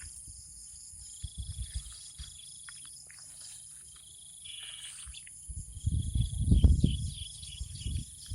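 Steady high-pitched chorus of crickets and other insects, with a brief trill about halfway through. Over the last few seconds a low rumbling noise rises beneath it and becomes the loudest sound.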